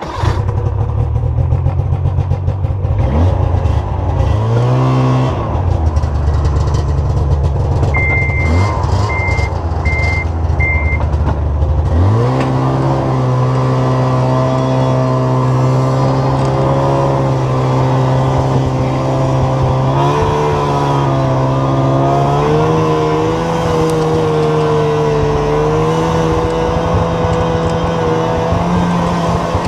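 Skandic SWT snowmobile engine running hard, towing a sled and a 30 ft cedar log uphill through snow. The pitch climbs about three seconds in, eases off, then climbs again about twelve seconds in and holds high, wavering a little. Four short high beeps sound about eight to eleven seconds in.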